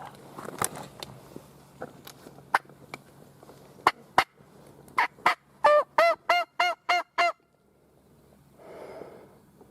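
Turkey yelps: a few sharp clicks, then a quick run of about eight loud hen yelps, each note arching up and down in pitch, stopping abruptly about seven seconds in.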